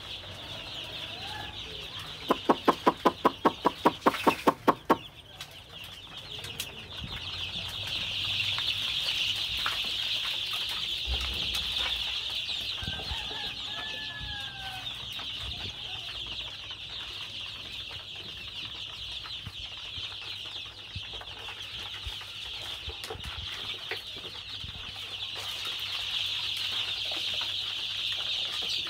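A large flock of desi chicken chicks peeping together in a steady, high-pitched chorus. A little after two seconds in, a loud rapid run of about a dozen pulses, roughly five a second, cuts through for a couple of seconds.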